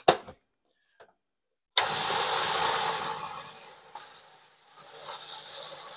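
A Cuisinart food processor's motor starts suddenly about two seconds in and runs, churning thick mashed cauliflower with cream cheese. It is a few clicks of the plastic lid being fitted at first. The motor noise fades almost away about four and a half seconds in, then comes back more quietly.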